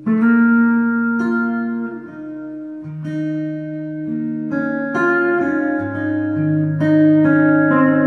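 Steel-string Gwood GMR-C acoustic guitar, capoed, fingerpicked and heard through its Sunrise S2+ soundhole pickup and K&K Pure Mini pickup into a Fishman Loudbox Mini amp. A full chord is struck firmly at the start, then a picked melody moves over ringing bass notes, with new notes plucked every second or so.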